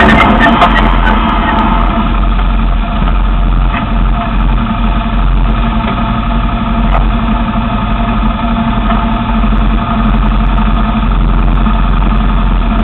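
Arctic Cat Wildcat side-by-side's engine dropping to a steady idle while the machine sits stopped.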